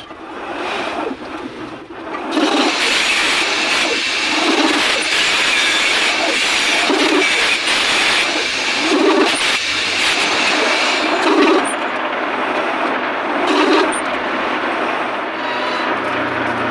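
Metal lathe spinning a meat grinder body while the tool cuts its new threaded sleeve. A harsh scraping hiss starts about two seconds in and eases off near the end, with a low thump about every two seconds.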